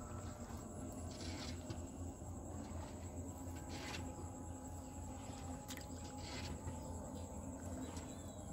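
Steady outdoor background of insects droning on one constant high note over a low hum, with a few brief clicks and rustles.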